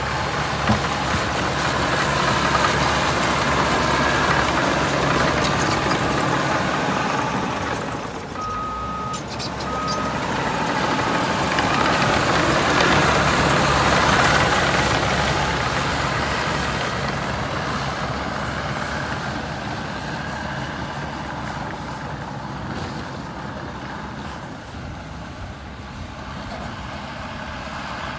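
Caterpillar D6R2 bulldozer's diesel engine working, rising and falling with the load in two long swells. Two short beeps of a backup alarm sound about nine seconds in.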